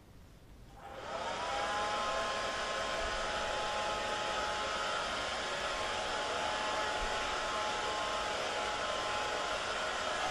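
Handheld blow dryer switched on about a second in, its motor whine rising to speed, then running steadily with a rush of air.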